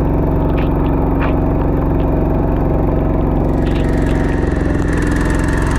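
Single-cylinder diesel engine of a two-wheel walking tractor running steadily under way, heard close up from the handlebars, with a few light rattling clicks from the machine.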